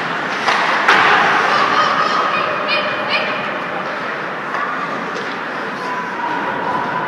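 Ice hockey game sound in an indoor rink: skates scraping the ice and players' and spectators' voices, with a sharp knock about a second in.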